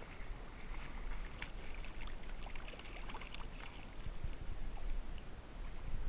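Shallow water sloshing and splashing close by, with many small splashes, over a steady low wind rumble on the microphone.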